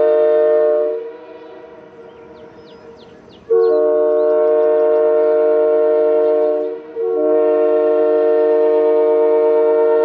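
Early-1960s Canadian sand-cast Airchime K3H three-chime train horn blowing a steady chord in long blasts. One blast ends about a second in; after a short gap a new blast starts abruptly at about three and a half seconds, breaks briefly near seven seconds and sounds again. The number 1 bell still has a slight warble, by the owner's account.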